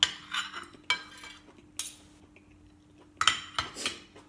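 Metal spoon scraping and clinking against a ceramic plate while scooping up food. There is a run of scrapes at the start, one sharp clink a little under two seconds in, and another run of scrapes and clinks near the end.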